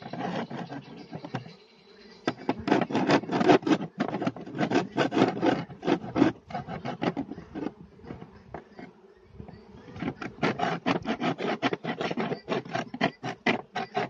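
A metal hive scraper rasping over the wooden boards of a beehive in quick repeated strokes, scraping them clean. The strokes come in two runs with a short pause between, and honeybees buzz around the hive.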